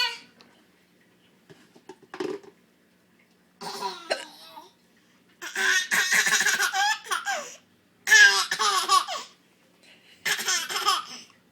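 Baby laughing in repeated bursts, some up to a couple of seconds long, with short quiet gaps between.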